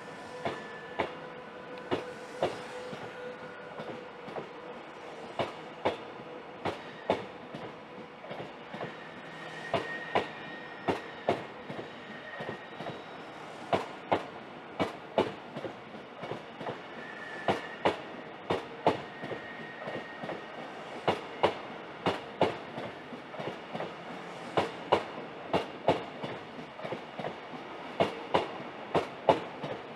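Caledonian Sleeper Mark 5 coaches rolling past along the platform, their wheels clicking over rail joints in pairs that come faster as the train gathers speed. There is a faint high squeal twice along the way.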